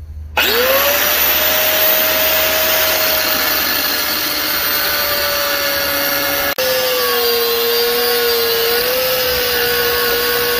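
Angle grinder with a thin cut-off disc starting up about half a second in, its whine rising quickly to full speed, then cutting through the steel of an old circular saw blade with a steady whine and grinding hiss. A brief break about two-thirds of the way through, after which the whine runs slightly lower.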